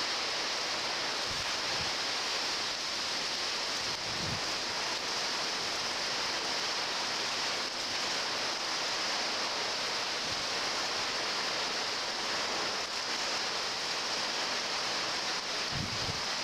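Hurricane Wilma's wind and driving rain making a steady, unbroken rush of noise, with a few brief low thuds scattered through it.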